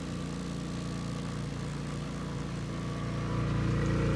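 Compressor of a 1940s General Electric refrigerator starting up and running with a steady hum after the control is switched back on from defrost, growing louder about three seconds in.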